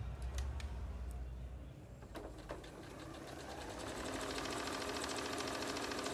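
Janome domestic electric sewing machine sewing fabric. It gives a few separate clicks at first, then from about three and a half seconds in runs steadily in a rapid, even rhythm of needle strokes that grows louder.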